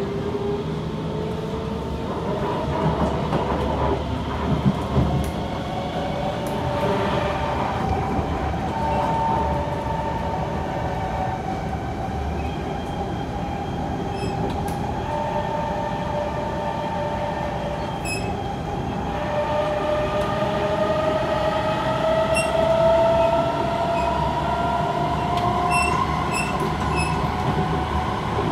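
Kawasaki C151 metro train's traction motors whining as it runs between stations, the whine rising slowly in pitch as the train gathers speed, levelling off for a stretch in the middle, then climbing again from a lower pitch about two-thirds in. Steady wheel and rail rumble runs under it, with a few short high clicks near the end.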